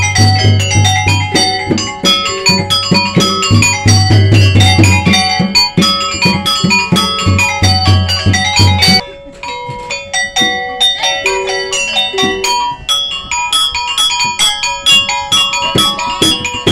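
Gamelan ensemble playing: fast runs of struck, ringing metal notes over deep low tones that come and go, the low tones dropping out about nine seconds in while the metallophones carry on more lightly.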